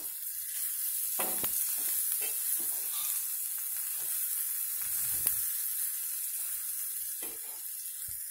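Chopped tomato, carrot and scrambled egg sizzling in oil in an aluminium kadai as they are stirred, with a steady high hiss and scattered scrapes and taps of the stirring utensil against the metal pan.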